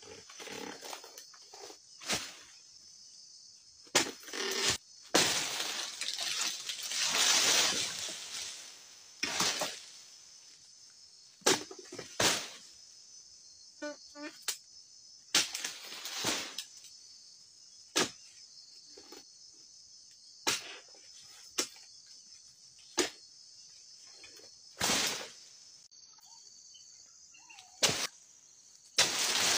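Oil palm harvesting tool striking and cutting into palm frond bases and fruit bunch stalks, as sharp irregular chops spaced a second or two apart. A longer rustle of falling fronds comes about six seconds in. All of this sits over a steady high insect drone.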